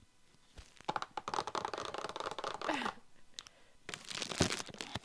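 Packaging crinkling and rustling as a replacement water-filter cartridge is taken out of its box. About a second in there are two seconds of dense crackling, then a louder, sharper rustle about four seconds in.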